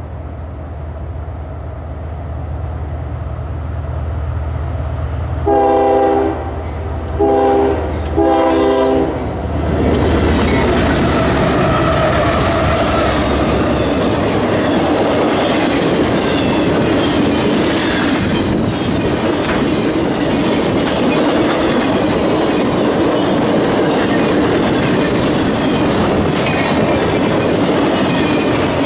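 CSX freight train: diesel locomotives approach with an engine drone that grows louder, and about six seconds in they sound their multi-chime air horn in three blasts. The lead units then pass, and a string of intermodal flatcars carrying highway trailers rolls by with steady wheel rumble and clickety-clack.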